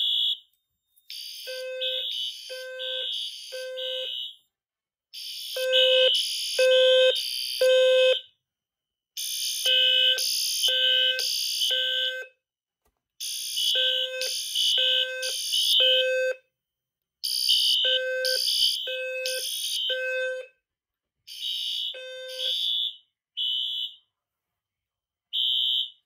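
Two System Sensor B200S intelligent sounder bases sounding the fire alarm's temporal-three evacuation signal: three loud beeps, a pause, then three again, over and over. One sounds a low tone and the other a high shrill tone, slightly out of step, showing both detectors are in alarm.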